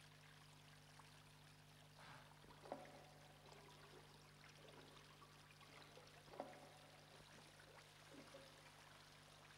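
Near silence: a steady low hum, with a few faint, soft water sounds under the water surface, the clearest two about three and six seconds in.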